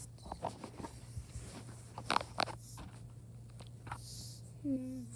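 Handling noise of a phone camera being picked up and positioned: scattered rustles and taps of fingers and fabric over a steady low hum. A voice starts near the end.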